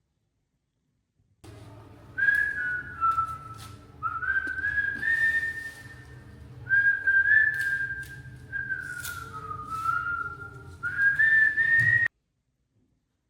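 A whistled tune in several short gliding phrases over a low steady hum. It starts about a second and a half in and cuts off suddenly near the end.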